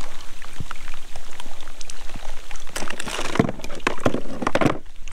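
Patter and drips of water with scattered knocks and clicks as a freshly caught palometa is handled over a plastic kayak, with two short splashy, rustling bursts about three and four seconds in.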